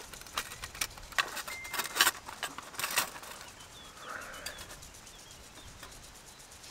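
A mobile phone going off: irregular sharp clicks and ticks, loudest about two and three seconds in, with a brief steady beep about a second and a half in. Faint bird chirps around four seconds in.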